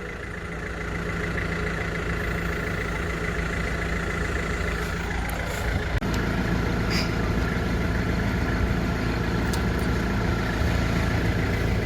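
An engine running steadily at idle, with a few faint short clicks and a slight change in its low hum about halfway through.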